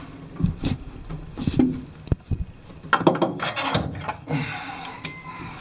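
Irregular knocks, clicks and scraping as a starting battery is set in place and its terminal clamps are handled and fitted.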